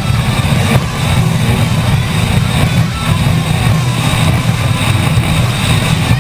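Offshore powerboat's engines running steadily at speed, a constant low drone, with wind rushing over the microphone.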